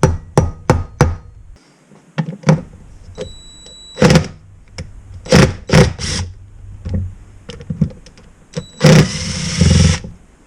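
Sharp metallic clicks and knocks of a 7 mm socket tool working the fasteners on an ATV starter motor clamped in a vise: a quick run of clicks at the start, then scattered knocks. A noisy whirring stretch of about a second comes near the end.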